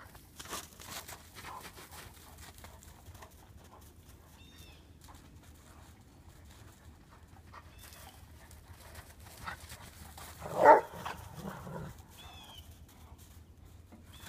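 Two dogs, a German Shepherd and a Rottweiler, playing together: scattered soft dog noises, then one loud bark a little past ten seconds in, followed by a few quieter ones.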